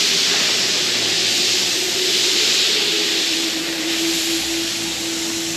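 Pop-up lawn sprinkler heads hissing as compressed air blows through the irrigation lines, pushing out the last of the water to winterize the system. A faint steady tone runs underneath and drops slightly in pitch about halfway through.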